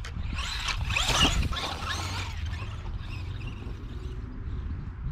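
Hosim 1:16 RC monster truck's brushed electric motor and gears whining in raspy bursts as it is throttled, loudest about a second in, then fading as the truck drives away.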